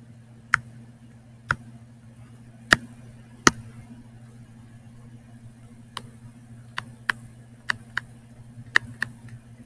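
About a dozen sharp, irregularly spaced clicks of a pen stylus tapping a tablet screen as strokes of highlighting and handwriting go down, over a steady low hum.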